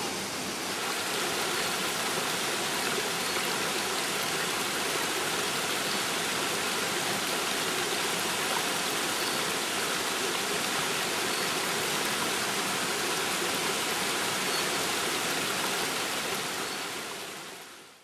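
A waterfall and mountain stream rushing steadily over rocks, fading out near the end.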